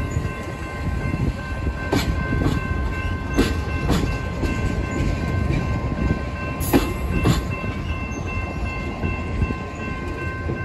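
Passenger railcars rolling past at low speed: a low steady rumble with sharp wheel clicks over the rail joints, often in pairs as each truck crosses a joint. A steady high whine of several tones runs underneath.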